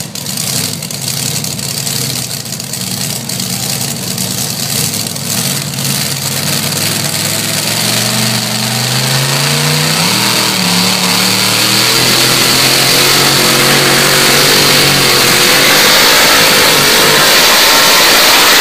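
Pulling truck's engine revving, its pitch climbing about eight to ten seconds in, then running hard at high revs and growing steadily louder as it pulls the weight sled down the track.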